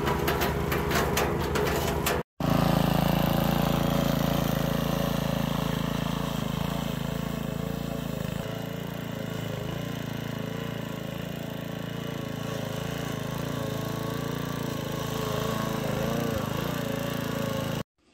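Petrol wood chipper running, clattering rapidly for the first two seconds and then, after a brief break, running steadily, with a slight change in its note about eight seconds in.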